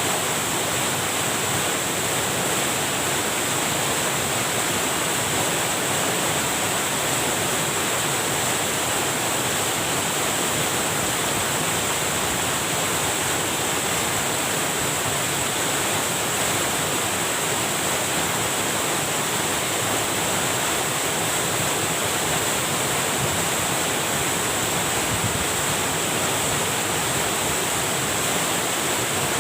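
Rushing water pouring steadily over a small waterfall or weir spillway, swollen after heavy rain. A steady high-pitched tone runs above it.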